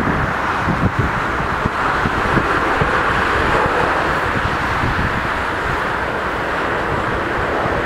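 Jet engines of a Boeing 737-700 on its landing rollout, a steady rush that holds level as the airliner decelerates on the runway. Wind buffets the microphone with irregular low thumps, most in the first couple of seconds.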